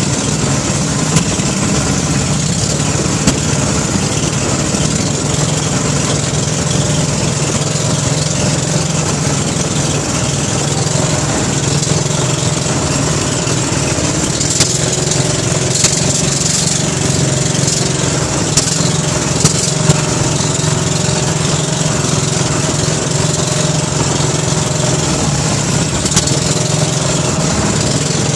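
Outrigger boat's engine running steadily under way, with the hiss of water and spray over the hull and a few sharp knocks scattered through.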